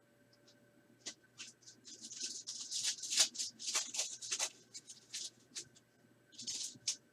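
Trading cards rustling and swishing as they are slid and flipped through by hand, in a quick run of short scrapes.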